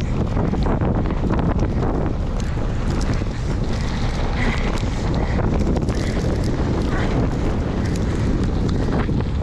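Strong wind buffeting the microphone, a loud, steady rumble. Scattered sharp ticks run through it.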